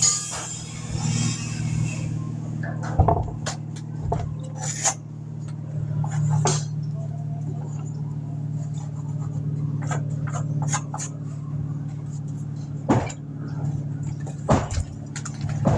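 Long wooden boards being handled: scattered knocks and scrapes of wood as the boards are lifted, tipped and set down. Under it runs a steady low machine hum.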